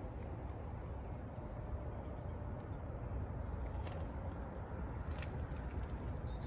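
Outdoor field ambience: a steady low rumble with a few short, high bird chirps, about two seconds in and again near the end, and an occasional faint click.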